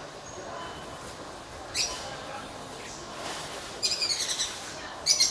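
Small birds chirping: a short high chirp about two seconds in, a quick run of chirps around four seconds, and another burst just before the end, over a steady background hum.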